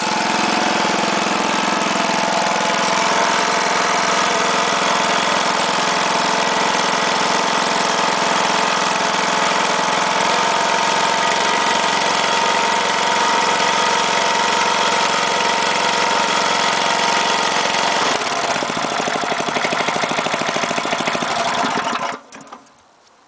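The 5 hp Briggs & Stratton single-cylinder engine of a Yard Machines rotary tiller runs steadily at mid throttle on a cold start. It runs smoothly, as "runs perfect". About three-quarters of the way through its sound changes and slows, and it cuts off near the end.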